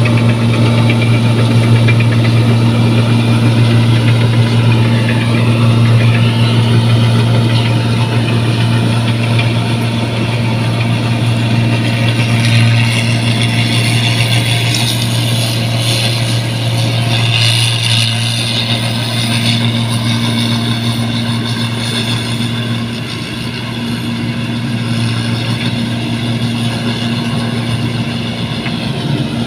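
New Holland 1545 combine harvester running steadily while it cuts rice: a constant engine hum with the clatter of the cutting and threshing works on top, busier around the middle.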